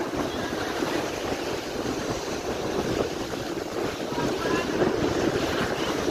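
Ocean surf breaking and washing up the beach in a continuous swelling rush, with wind buffeting the microphone.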